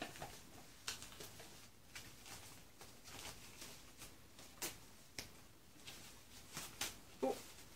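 Faint, intermittent rustling and crinkling of the white wrapping being pulled off a boxed item, with scattered sharp crackles. A brief vocal sound comes near the end.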